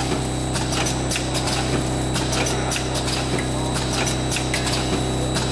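Powder sachet packing machine (vertical form-fill-seal type) running: a steady motor hum with a repeated run of sharp clicks from its feeding and sealing mechanism.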